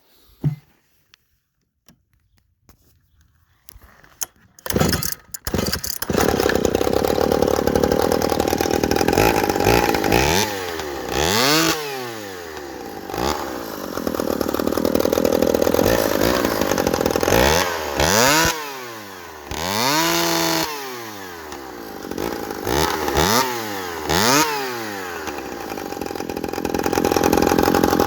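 Modified Echo 610 chainsaw with twin cylinders and twin racing exhaust pipes. After a few seconds of quiet it catches about five seconds in, after a couple of short bursts, and then runs loud at high revs. The throttle is eased off and opened again several times, so the revs dip and climb back.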